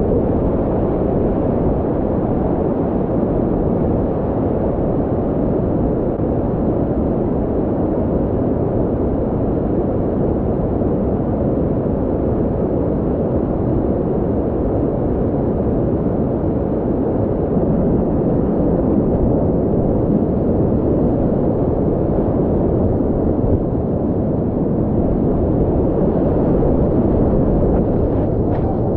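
Whitewater of a river in high flow rushing over boulders in a steep rapid: a loud, steady, muffled rushing noise with little treble.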